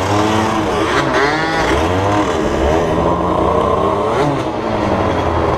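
50cc two-stroke dirt bike engines revving up and down several times, with a steadier stretch in the middle and a sharp rev about four seconds in.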